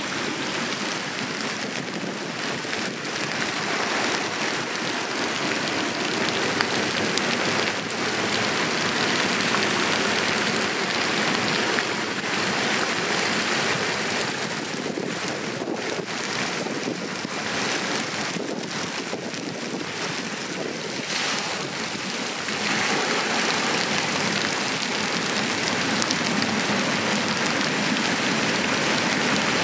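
Heavy rain falling in a storm, a steady dense hiss that swells louder for stretches, with wind.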